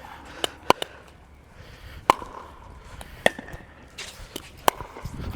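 Pickleball rally: sharp knocks of the plastic ball off paddles and court, one about every second or so.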